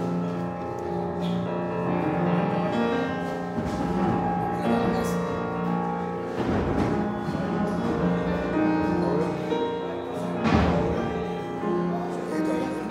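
Solo grand piano played freely as a warm-up, with sustained chords ringing on and two loud, hard-struck accents about halfway through and again some four seconds later.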